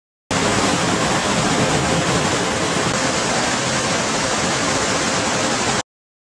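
Steady rush of spraying water and wash equipment inside an automatic car wash tunnel, cutting in abruptly just after the start and cutting off abruptly near the end.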